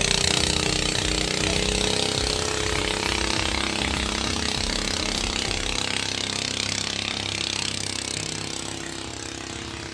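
Speedboat engine running at speed on the river, a loud steady buzz that fades as the boat moves off.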